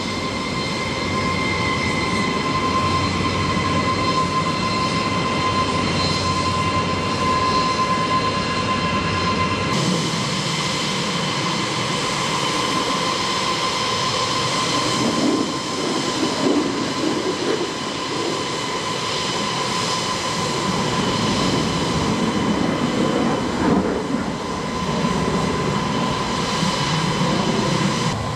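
B-52 bomber's jet engines running on the ground: a steady whine with a high tone over rumbling noise, its character changing abruptly about ten seconds in.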